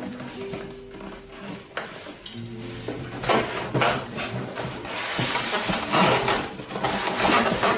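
Cardboard box flaps and styrofoam packing scraping and rustling while a stand mixer is handled in its box. The handling is light at first and grows louder and busier from about three seconds in.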